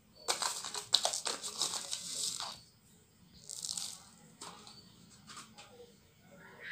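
Sugar poured from a small glass bowl into a glass mixing bowl and scraped out with a spoon: a grainy hiss with fine clicks for about two and a half seconds, a second shorter pour a little after three and a half seconds, then a few light taps.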